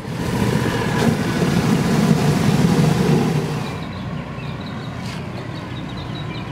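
Water rushing from a fire hose nozzle into a plastic bucket over the low hum of a fire engine running. The rush drops away after about four seconds, leaving the engine hum and short high chirps.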